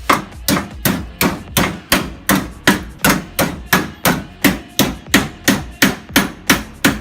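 Hammer blows in a steady rhythm, about three a second, some twenty strikes in all, each with a short ring.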